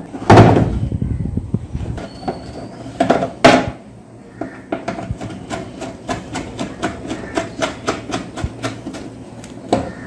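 Plastic washing-machine control panel knocked twice as it is handled into place, then a screwdriver driving a screw into the plastic, making a steady clicking of about four clicks a second.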